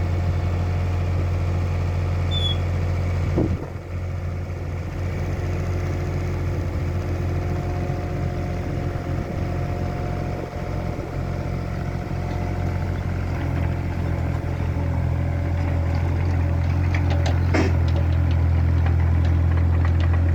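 A vehicle engine running steadily at low revs, with a sharp knock about three and a half seconds in and another a few seconds before the end.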